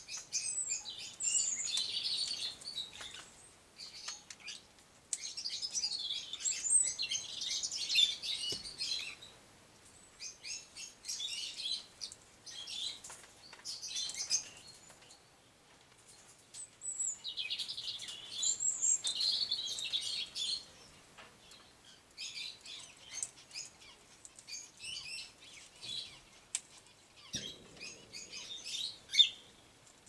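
Aviary flock of cockatiels and moustached parakeets chirping and chattering in repeated bursts of high calls, busier in some spells than others. A sharp tap near the end.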